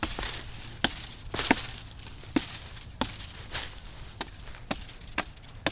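Axe chopping into a small tree trunk: about ten sharp blows in a steady rhythm, nearly two a second.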